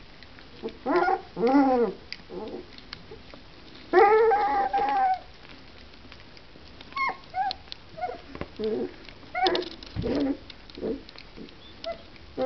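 German pinscher puppies play-fighting and calling out: a couple of short cries near the start, a longer drawn-out cry lasting about a second about four seconds in, then a string of short high yelps.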